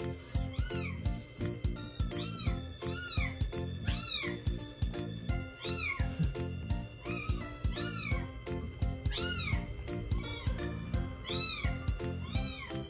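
A young kitten mewing over and over at the bottle, short high mews that rise and fall, about one to one and a half a second, over background music.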